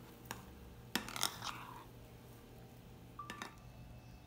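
A few faint clicks and taps of a metal spoon against a glass bowl, the clearest about a second in, with soft scraping as dough balls are turned in thick batter.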